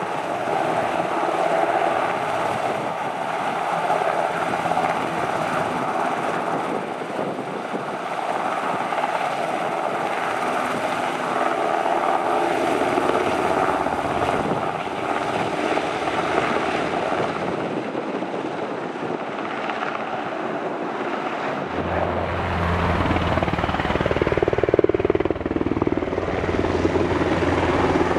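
Sikorsky S-70 Black Hawk helicopter's rotors and turbine engines running steadily and loudly at close range. Near the end a deep low drone joins the sound.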